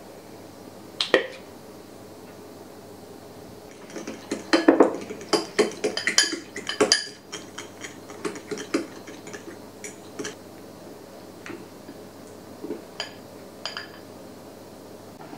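A metal fork beating egg and grated cheese in a glass bowl, clinking and scraping against the glass: one sharp clink about a second in, a quick run of clinks from about four to seven seconds in, then scattered lighter taps.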